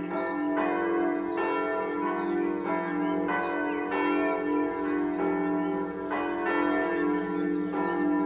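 The Südkirche's church bells swinging together in a full peal. Overlapping strikes come about every two-thirds of a second over a continuous ringing hum.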